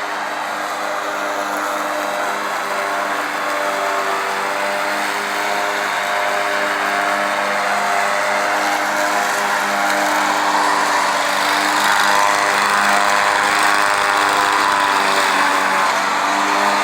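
Engine of a Country Clipper joystick-steered zero-turn riding mower running steadily while mowing, its drone growing gradually louder.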